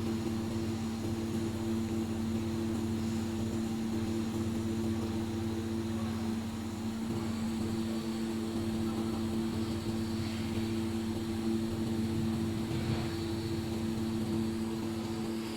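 Handheld fiber laser welding machine running with a steady hum made of two held low tones over a noisy hiss.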